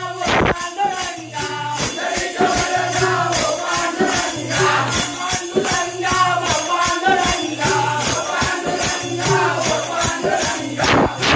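Devotional bhajan: voices singing in chorus over rhythmic hand-clapping and a hand-played, rope-laced double-headed barrel drum, keeping a steady beat.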